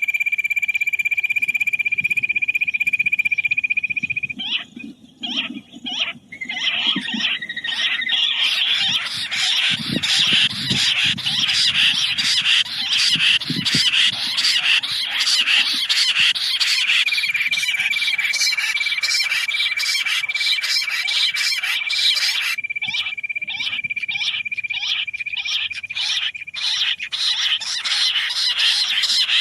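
Quail calling: a fast, continuous run of repeated short chirping notes. A steady high whistle-like tone runs under them for the first few seconds and again for about ten seconds midway.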